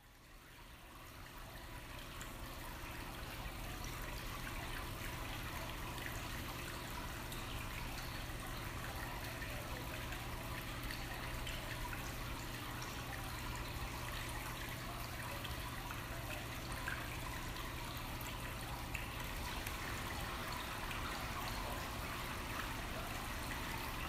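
Indoor water wall trickling: a steady rush of water running down the panels into a pebble-filled trough, fading in over the first few seconds.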